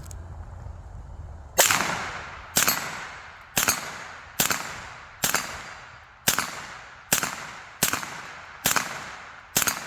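Suppressed HK MP5 fired in slow single shots through a B&T RBS can with supersonic ammo: about ten sharp reports, roughly one a second, starting about a second and a half in, each with a short decaying echo.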